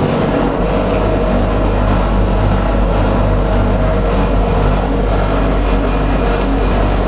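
Loud, steady mechanical running noise with a constant low hum, typical of laundry machinery running.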